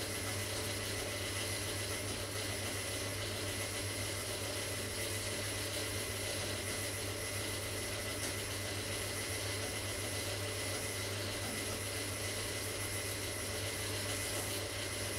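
Steady background hum and hiss with no change, a constant low hum under an even hiss.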